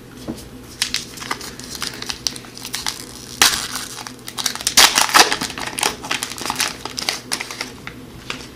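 Foil wrapper of an O-Pee-Chee hockey card pack being torn open and crinkled by hand. It makes a run of sharp crackles and rustles, loudest about three and a half and five seconds in.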